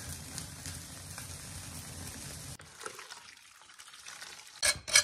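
Steady rushing and crackling of an open wood fire singeing a cured pig's head, burning off its bristles. After a cut, quieter water pouring from a kettle over the head in a plastic basin, then a couple of sharp knocks near the end.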